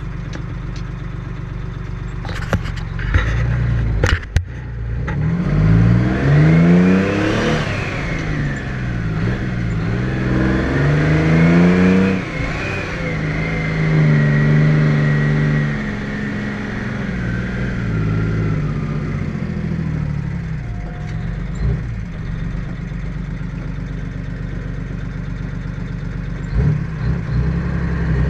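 Detroit Diesel 6V92 two-stroke V6 diesel of a 1980 GMC Brigadier dump truck pulling a heavy trailer load. Twice the revs climb and then drop as the truck is shifted up through its 10-speed Road Ranger gearbox, then the engine holds a steadier, slowly falling pull before climbing again at the very end. There are a few sharp knocks about three seconds in and again near the end.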